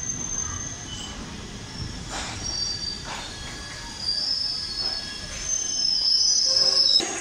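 Indian Railways express passenger coaches rolling slowly along a platform, their wheels squealing against the rails in high tones that grow louder over the last few seconds, with a few faint knocks. The sound cuts off abruptly near the end.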